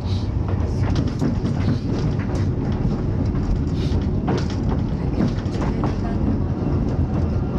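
Ikawa Line train running on the rails: a steady low rumble with frequent short clicks and rattles from the wheels and the car.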